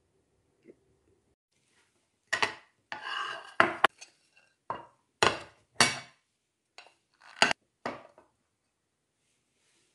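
A ceramic bowl and a glass plate knocking and clinking against each other and the countertop as a bowl of pilaf is turned out upside down onto the plate. The knocks start about two seconds in: about ten sharp ones over some five seconds, with a short scrape among the first.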